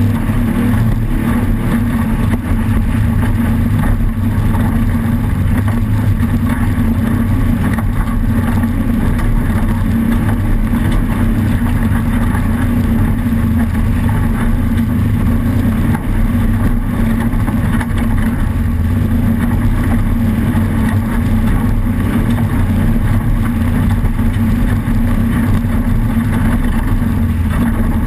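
Off-road race vehicle's engine running under steady load, a loud, constant drone with no marked revving up or down.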